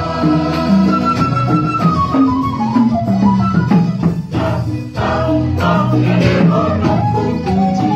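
Mixed church choir of men and women singing a hymn in parts, over instrumental accompaniment with a steady percussion beat.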